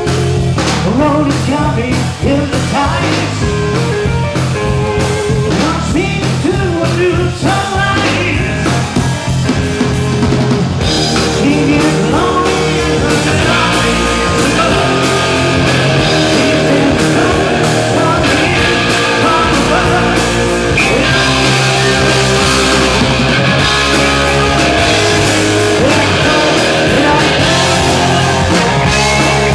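Live rock band playing: drum kit, electric guitar and bass, with singing. The sound fills out and gets brighter about ten seconds in.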